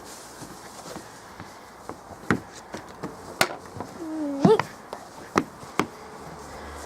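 Several sharp knocks and taps, five or six of them spread a second or so apart, with a brief rising call about four and a half seconds in.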